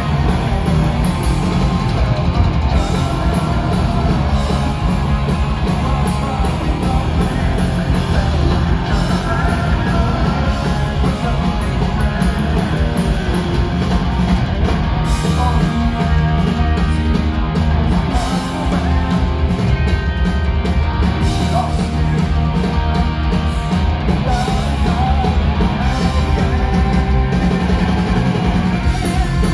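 Punk rock band playing live, heard from the audience: electric guitars, bass guitar and a drum kit, with a man singing into the microphone.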